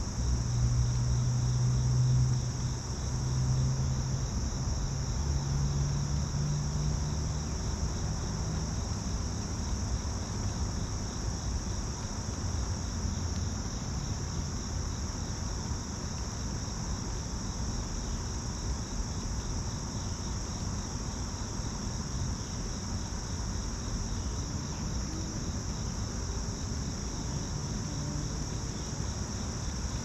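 Steady, unbroken high-pitched chorus of insects trilling in the trees. A low hum sits underneath it for the first several seconds, then fades.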